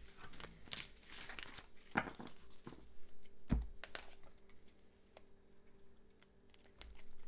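Tarot or oracle cards being handled and shuffled: rustling and crinkling for the first couple of seconds, then a few sharp taps as cards are knocked or laid down.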